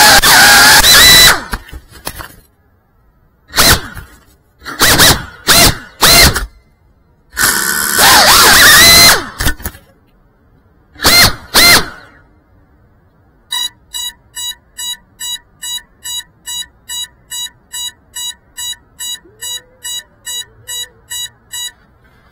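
Cinewhoop FPV quadcopter's small brushless motors whining, then punched and cut in short bursts that rise and fall in pitch, ending about twelve seconds in once the drone has crashed into a bush. About a second and a half later the downed drone's lost-model beeper starts beeping steadily, about twice a second.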